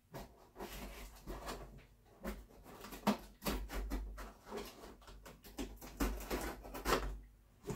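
Utility knife cutting through packing tape on the top of a cardboard box: an irregular run of scratchy, crackling strokes, with a few dull knocks on the cardboard.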